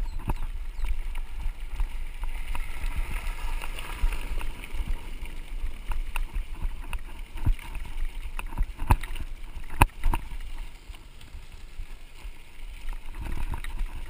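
Wind rumble and road noise on a handlebar-mounted camera of a mountain bike riding a gravel dirt road, with sharp knocks and rattles as the bike hits bumps, several of them in the second half. A car passing on the gravel adds a swelling hiss a few seconds in.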